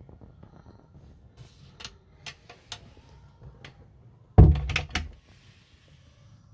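A door being shut with one heavy thunk about four seconds in, followed by a few short knocks. A few light clicks of handling come before it.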